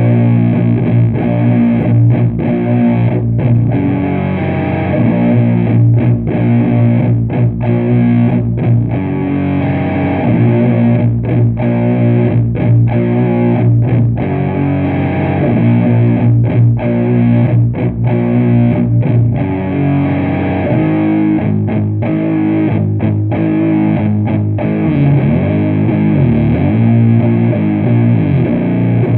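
Heavily distorted humbucker electric guitar in a stoner-doom tone, played through a PPPC Dream the Desert booster pedal into a Matamp GT120 valve amp and a 4x12 cabinet with Eminence speakers. It plays loud, long-held low chords and notes, with brief stops between them.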